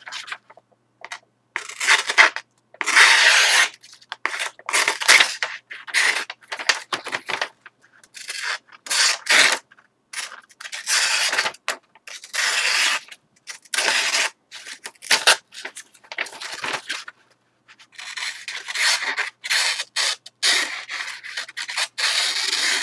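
Boker Kalashnikov 74 automatic knife's single-edged dagger blade slicing through a sheet of paper in a dozen or more separate scratchy strokes, with short pauses between, as a sharpness test. The blade cuts cleanly, pretty sharp out of the box though not extremely so.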